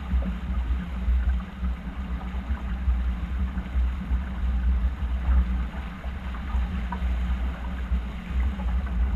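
Wind and water noise aboard a racing sailing yacht: a gusty rumble of wind on the microphone over the rush of water along the hull.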